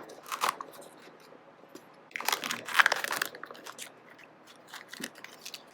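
Crinkling and tearing of a Kinder Joy egg's wrapping: a short burst right at the start, then a longer, louder spell of crinkling a couple of seconds in, followed by a few light clicks and rustles.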